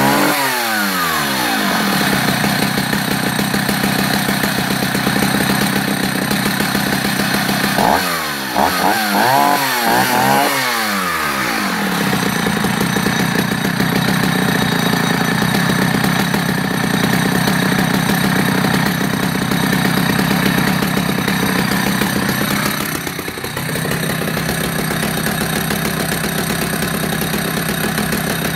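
Vintage Husqvarna 65 two-stroke chainsaw running just after a cold start. The throttle is blipped in quick revs at the start and again about eight seconds in, then the saw settles into a steady idle, with a brief dip about 23 seconds in.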